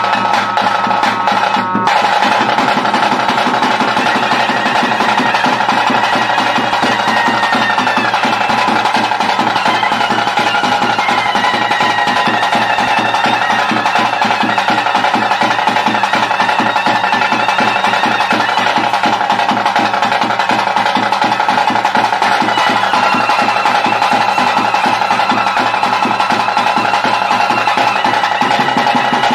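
Traditional ritual music: fast, dense drumming with a high, wavering melody held above it.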